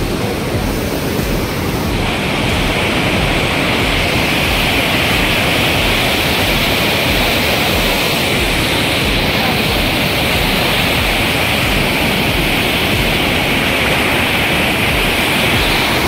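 Steady loud rush of a river in flood pouring over rocky falls and rapids, a continuous hiss of white water. The hiss turns brighter about two seconds in and stays so.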